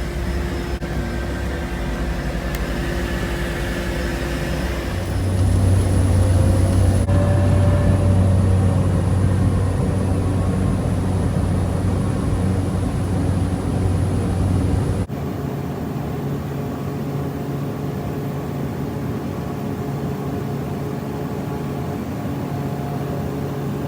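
Light propeller aircraft's engines droning steadily, heard from inside the cabin, in three cut-together stretches: a louder, deeper hum comes in about five seconds in, and the sound changes abruptly about fifteen seconds in.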